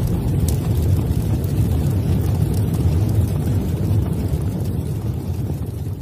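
Explosion sound effect for an animated logo intro: a loud, steady, deep rumble that starts to fade near the end.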